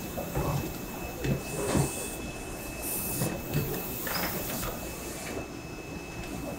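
Flatbed screen-printing press at work: a series of clunks and knocks as the screen frame and squeegee move, with a short hiss about two to three seconds in, over steady machine noise with a faint high whine.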